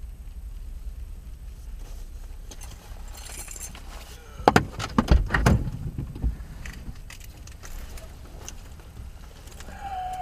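Low steady rumble of a stopped vehicle's cabin, with a cluster of sharp clicks and metallic rattles about halfway through, typical of keys and a door latch being handled. A short beep sounds near the end.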